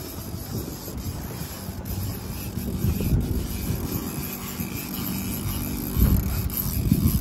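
Wind buffeting the microphone in gusts over the steady low rumble of a sportfishing boat's engine on the water.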